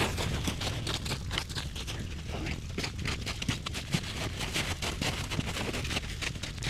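Dense, irregular crunching and scraping in snow, with wind rumbling on the microphone.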